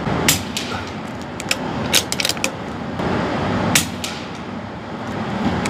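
Suppressed .22 LR CZ 457 Pro Varmint bolt-action rifle firing: a few quiet, sharp cracks spaced roughly two seconds apart, with smaller metallic clicks of the bolt being worked between shots. A steady ventilation hum runs underneath.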